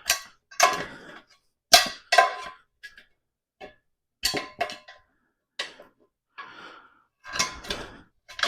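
Steel tire irons clinking and scraping against a motorcycle front wheel rim while the old tire's bead is levered off by hand: about a dozen irregular sharp metallic knocks, some ringing briefly.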